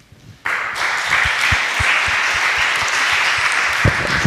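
Audience applause that breaks out suddenly about half a second in and continues steadily.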